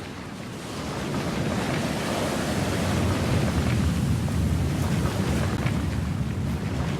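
Aquarium water churning steadily, a low rushing that grows louder about a second in.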